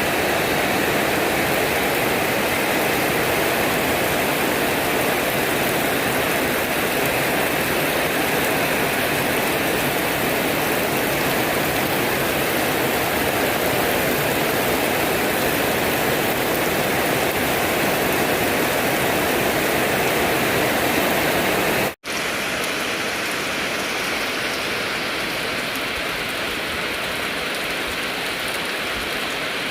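Steady rain falling as a continuous, even hiss. About two-thirds of the way through it cuts out for an instant, then carries on slightly softer.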